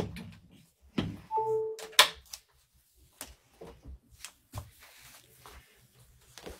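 A phone being handled: a knock about a second in, a short electronic beep, then a sharp click about two seconds in, the loudest sound, followed by scattered light taps and rustles.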